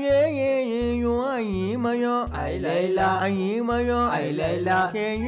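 Background song: a melodic singing voice with drawn-out, bending notes over a steady low bass beat of about two beats a second.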